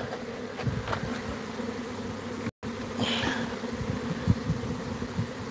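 A honeybee swarm that has lost its queen, buzzing in a steady hum with scattered handling bumps. The audio cuts out completely for a moment about two and a half seconds in, and a short higher sound follows just after.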